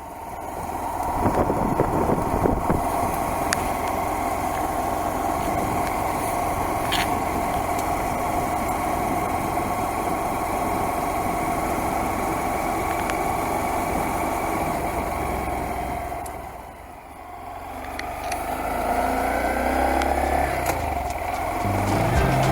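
A Honda Monkey's 125 cc single-cylinder engine runs at a steady pitch while the bike is ridden. The sound dips briefly about two-thirds of the way through, then the engine pitch rises as the bike accelerates.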